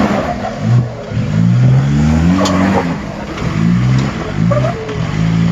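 Nissan Patrol GU4 engine revving up and easing off again and again under load as it claws up a rock step, its wheels spinning for grip. The rear ARB air locker is not engaged, so only the front diff is locked.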